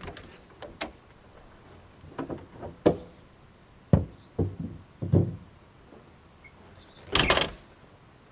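Metal knocks and clanks from parts and tools of a wood gas generator being handled, with a brief rattling scrape about seven seconds in.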